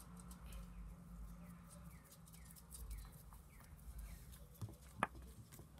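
Faint tapping and pattering as glitter is shaken from a tube into glue in a plastic container, then a sharp click about five seconds in as stirring starts.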